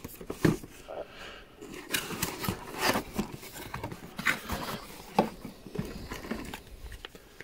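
Cardboard packaging being handled: the lid of a radio's box opened and a paper manual lifted from its foam tray, giving an irregular run of scrapes, rubs and light knocks.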